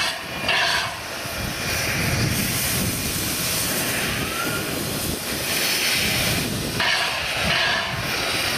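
NM25 steam locomotive hissing steam from its open cylinder drain cocks, with stronger blasts of steam about a second in and again near the end.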